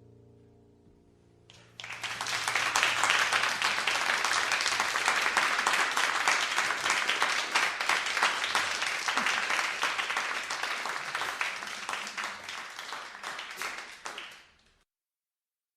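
Last chord of a song dying away, then an audience applauding, which starts suddenly and is cut off abruptly after about thirteen seconds.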